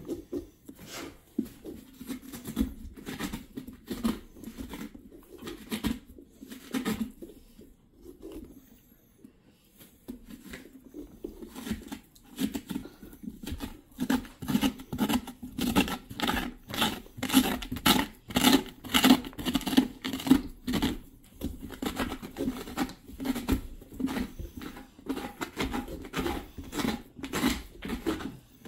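Pumpkin rind being cut with a small hand-held carving blade worked up and down in short rhythmic strokes. The strokes are sparse early on, pause briefly, then settle into about two or three a second from about halfway through.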